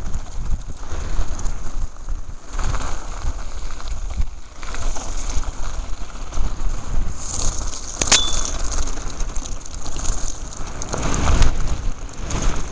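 Mountain bike tyres crunching over loose gravel and scree on a fast descent, with wind buffeting the microphone. There is a sharp click about eight seconds in and a smaller one a few seconds later.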